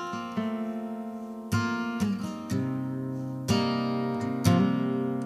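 Background music: acoustic guitar strumming chords, a new chord struck about every second and left to ring.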